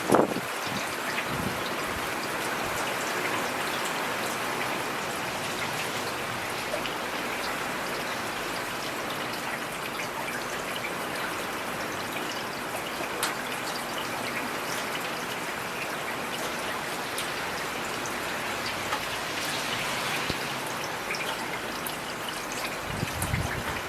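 Heavy rain falling steadily: a dense, even hiss with individual drops ticking through it. A brief louder burst comes right at the start, and a short low rumble swells near the end.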